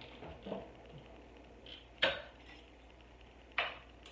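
Three sharp clinks of a measuring spoon against spice jars and the crock pot, about a second and a half apart.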